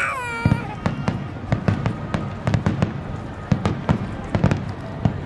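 Barrage of aerial fireworks shells bursting in quick succession: sharp bangs about three or four a second over a low rumble. A voice rises and falls briefly at the very start.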